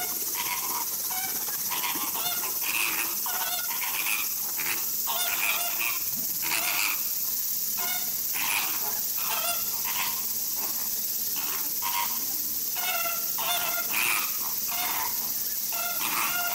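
A flock of flamingos calling, many short goose-like honks repeating and overlapping, with a steady high hiss underneath.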